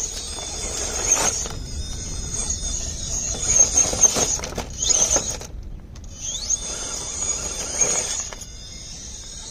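RC rock crawler's electric motor and gear drivetrain whining at a high pitch as it climbs rock. The whine cuts out briefly a little past the middle, then spins back up with a rising whine. A few knocks come from the tyres and chassis on the rock.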